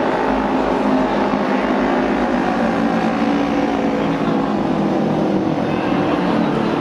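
Several auto race motorcycles' 600 cc twin-cylinder engines running at speed together, a steady, loud mix of overlapping engine notes.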